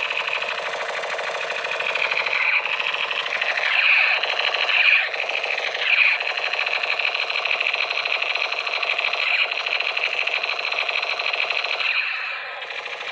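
A toy buzzing with a rapid, steady rattle, with a few brief louder swells partway through.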